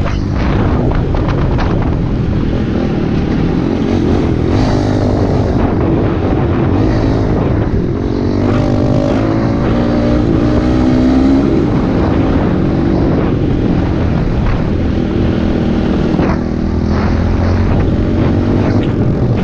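Dirt bike engine running hard along a trail, its pitch rising and falling with the throttle and climbing highest around the middle, over a steady low rumble of wind on the microphone.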